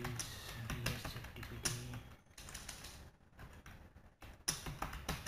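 Typing on a computer keyboard: irregular runs of keystrokes with a pause in the middle. A low steady hum sounds under the first two seconds and then stops.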